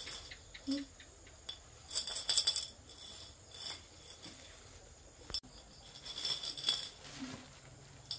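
Small hard objects clinking and rattling together in two bursts, one about two seconds in and another around six to seven seconds in.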